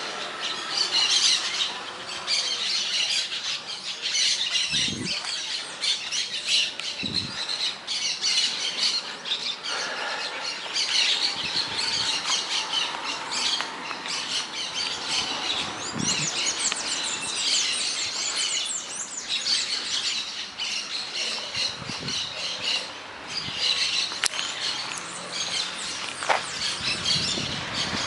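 A flock of maritacas (parakeets) squawking and chattering without a break, many calls overlapping.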